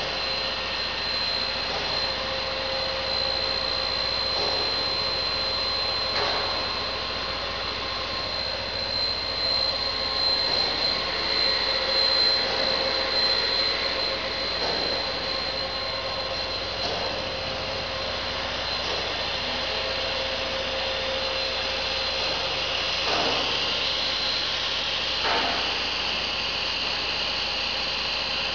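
Machinery of an HDPE pipe extrusion line running: a steady mechanical noise with a constant high whine, and a few faint knocks now and then.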